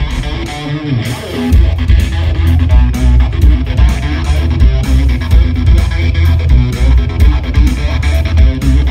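Live electric guitar played loud through an amplifier over a heavy drum-and-bass backing beat, which comes in about a second and a half in.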